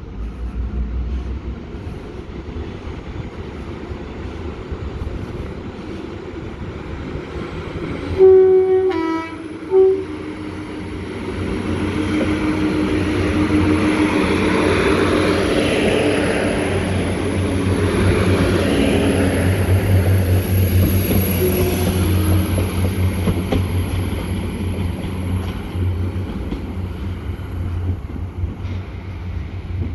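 A passenger train sounds its horn in two short loud blasts about eight seconds in, then runs past, its rumble swelling to a peak near the middle and fading away, with a high thin whine above it.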